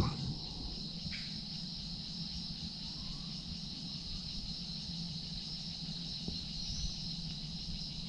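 Steady chorus of insects, a continuous high-pitched buzz that does not let up, over a faint low rumble.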